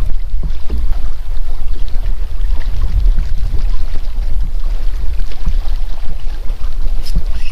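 Wind buffeting the microphone: a loud, fluttering low rumble, with faint scattered clicks.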